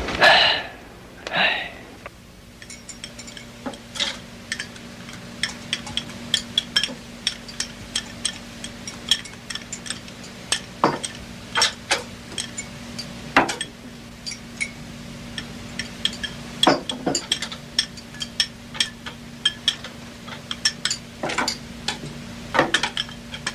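Chopsticks and porcelain bowls clinking as two people eat noodles: a scattered run of small sharp clicks and clinks over a low steady hum. Two brief loud sounds open it in the first two seconds.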